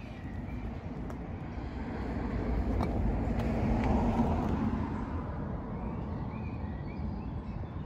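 A car driving past: its noise rises to a peak about halfway through and fades again, over a steady outdoor background rumble.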